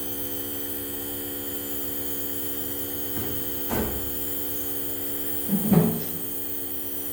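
Compressor nebulizer humming steadily during a child's cough-and-cold inhalation treatment, with two brief louder noises, the second the loudest, around four and six seconds in.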